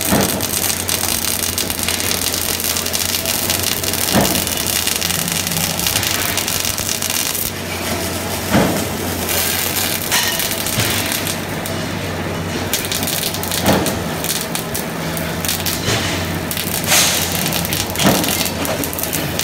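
Robotic MIG welding arc on carbon steel, a steady crackling hiss with a few louder pops scattered through it, over a steady low hum.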